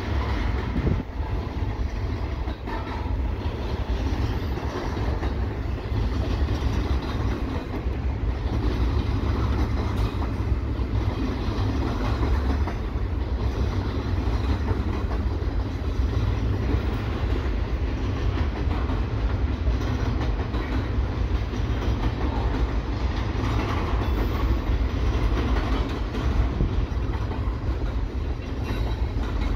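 Loaded double-stack container well cars of a freight train rolling steadily past, with wind rumbling on the microphone.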